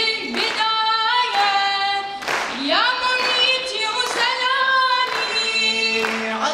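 Voices singing a nasheed melody in long held notes that slide up and down between pitches.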